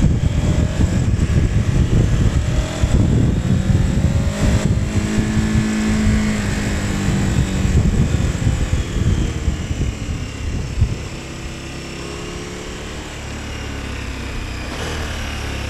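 KTM 1290 Super Adventure S's V-twin engine riding along, its note rising and falling with the throttle. About eleven seconds in, it drops to a quieter, steady running sound.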